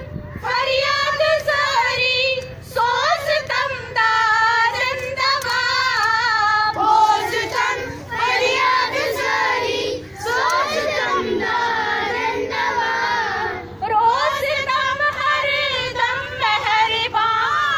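A group of women and schoolchildren singing together in unison, a woman's voice on a microphone leading, with short pauses between lines: a school assembly prayer.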